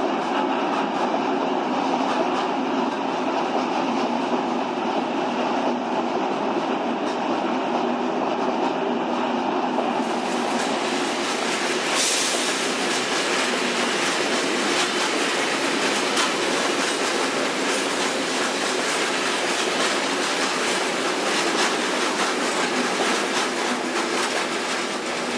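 Freight train of open box wagons rolling past at speed, wheels clattering over the rail joints with a continuous rumble. A steady hum runs under it for the first ten seconds. After that the wheel noise turns brighter and rattlier, with a sharp clank about twelve seconds in.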